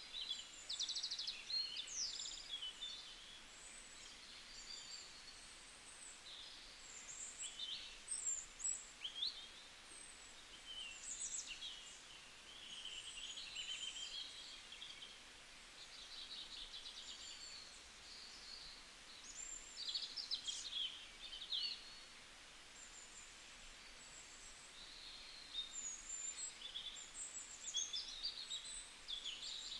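Small birds chirping and trilling, many short calls overlapping throughout, over a faint steady background hiss.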